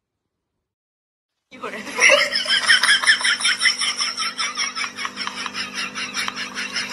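Silence for about a second and a half, then a person laughing hard in quick breathy bursts, about five a second, without letting up.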